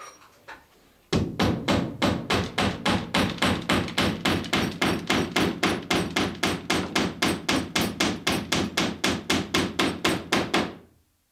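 A copper boat nail being hammered through the planking into a wooden rib, with a heavy cordless drill held against the rib as a backing weight. There is a fast, even run of hammer blows, about four a second, that starts about a second in and stops just before the end.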